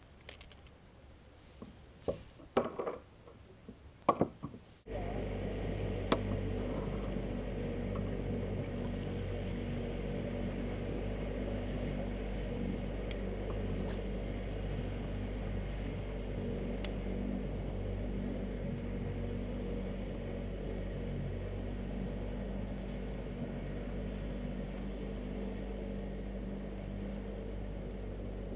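A few light knocks and clicks, then from about five seconds in a steady low mechanical hum of constant pitch that starts suddenly and runs on unchanged.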